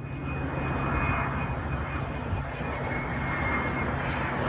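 Bombardier business jet's rear-mounted turbofan engines on landing approach, flying low overhead. A steady rushing jet noise runs under a thin high whine that drifts slightly down in pitch and fades near the end.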